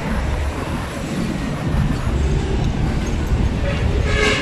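Steady rumble of city road traffic, cars and motorcycles passing, with a brief higher-pitched tone near the end.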